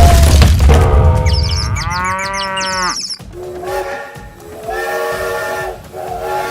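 Cartoon sound effects: a heavy low rumble at the start, then a run of long, drawn-out wailing calls whose pitch bends up and down before settling into held tones.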